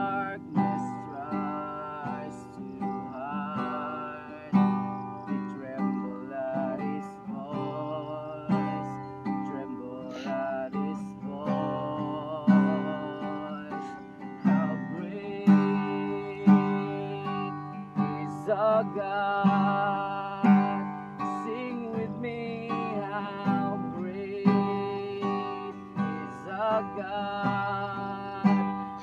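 A man singing a worship song, accompanying himself on a strummed acoustic guitar.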